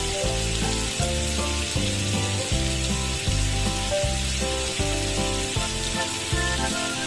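Squid and butter sauce sizzling on a hot cast-iron sizzling plate, a steady hiss, over background music with a steady bass beat.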